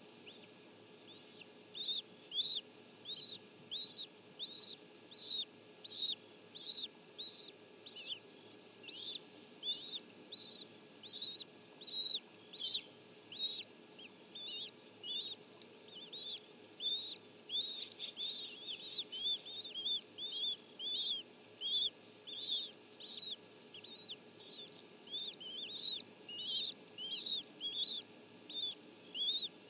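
Bald eagle chicks begging during a feeding: a steady run of short, high peeps, about two a second, starting about a second in and crowding together for a few seconds in the middle.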